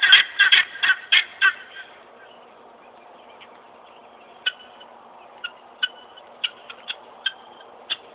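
Guinea fowl calling in a fast run of loud, harsh notes, about five a second, that breaks off about a second and a half in. After that there are only scattered short, faint chirps, roughly one a second.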